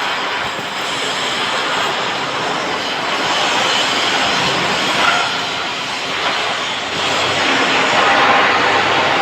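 MIG welding arc running in a continuous bead, a steady crackling hiss with no break.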